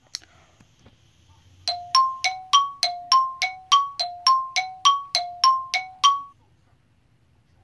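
A two-note chime struck over and over, a lower and a higher note alternating about three to four times a second, some sixteen strikes in all, each ringing briefly, then it stops.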